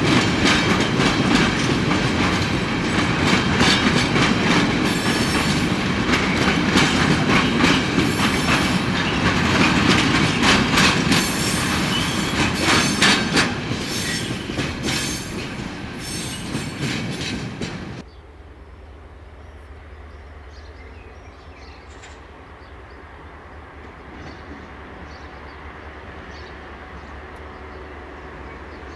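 Loaded container flat wagons of a freight train rolling past, with wheels clattering rhythmically over the rail joints. About 18 seconds in the sound cuts to a much quieter steady low drone of an idling CFL class 1800 diesel locomotive, growing slightly louder near the end.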